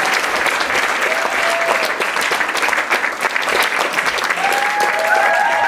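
Audience applauding steadily, with a few voices calling out and cheering, more of them near the end.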